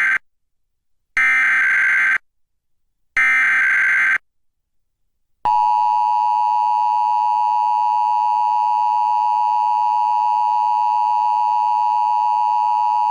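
Emergency Alert System broadcast signalling: the end of one SAME header burst, then two more raspy digital data bursts about a second long each, two seconds apart. About five and a half seconds in, the steady two-tone EAS attention signal (853 and 960 Hz together) starts and holds, marking the activation of the alert system for a required monthly test.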